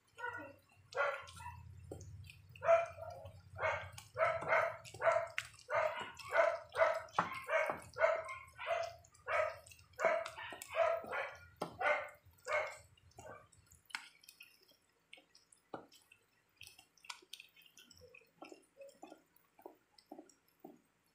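A dog barking over and over, about two barks a second, for most of the first fourteen seconds, over a low hum that stops at the same time. Near the end, faint soft clicks of a plastic spatula stirring batter in a metal bowl.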